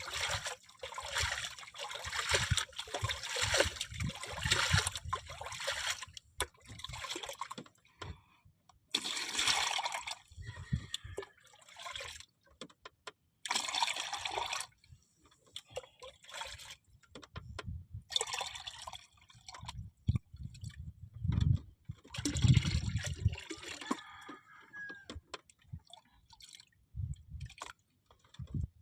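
Water splashing and sloshing in irregular bursts of a second or two, with a few dull low thumps.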